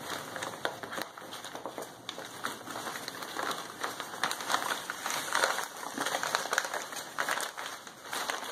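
Newsprint rustling and crinkling in irregular handfuls as a roll of freshly steamed silk is unwrapped from it.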